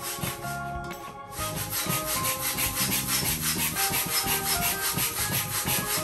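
Manual air pump worked in quick, even strokes, a rhythmic rush of air several times a second, blowing up an inflatable pool. The strokes get louder and faster about a second in.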